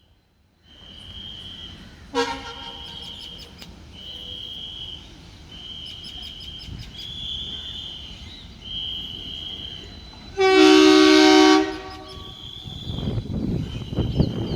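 Indian diesel locomotive horns: a short toot about two seconds in, then a loud horn blast of just over a second around ten seconds in, followed by the rising rumble of the train arriving. A high-pitched beep repeats steadily, about every second and a half.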